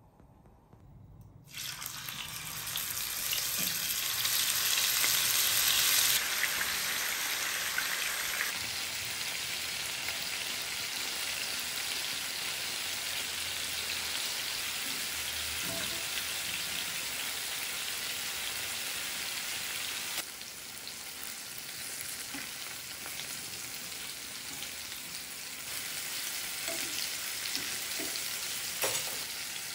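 Marinated chicken pieces frying in oil in a pan: a steady sizzle that comes in suddenly about a second and a half in, is loudest for the next few seconds, and eases a little about two-thirds of the way through.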